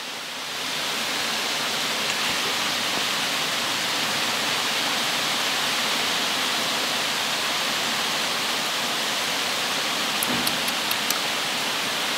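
Heavy rain pouring down outside an open window, a steady rushing hiss. A few small clicks come near the end.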